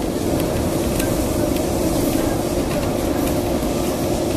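Lisbon traditional street tram running along its rails, heard from on board: a steady rumble of wheels and running gear on the street track, with a few faint clicks.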